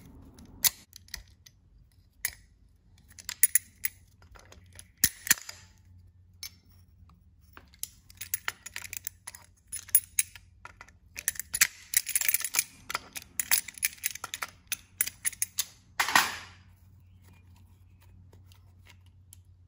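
Locking pliers clicking, rattling and scraping on a drilled-out, collapsed broken exhaust manifold bolt as it is worked loose from the cylinder head: many sharp metal clicks, with denser scraping past the middle and one louder clatter about sixteen seconds in.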